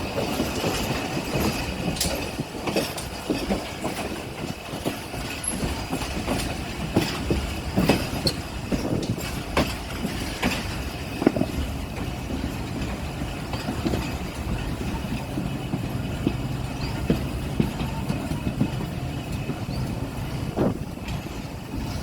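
Train running across a railway bridge: a steady rumble of wheels on rail with irregular clicks and knocks from the track, and faint high steady tones above it.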